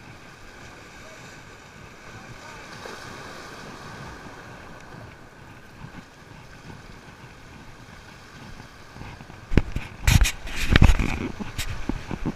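Small waves washing against jetty rocks, a faint steady wash. Near the end a cluster of loud, bassy thumps and rumbles hits the microphone.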